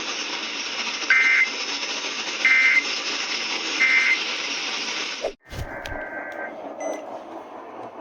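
Emergency Alert System end-of-message data bursts over radio static: three short, shrill two-tone digital warbles about a second apart, marking the close of the warning. A little after halfway the signal cuts out abruptly. A quieter feed with a low hum, a brief faint data burst and a few clicks follows.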